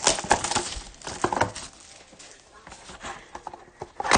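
A cardboard box of trading cards being opened and handled: rapid crinkling and tapping, busiest in the first second and a half, with one sharp tap near the end.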